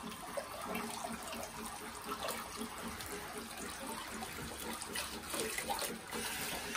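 Water from a handheld shower head running steadily over a wet dog's coat and splashing into the bath water in a bathtub.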